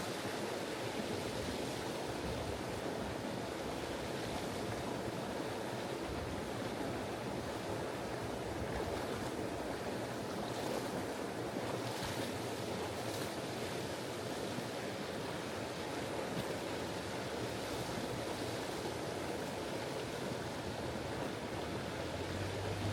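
Steady rush of a shallow river running over rocks, with a few faint splashes about halfway through.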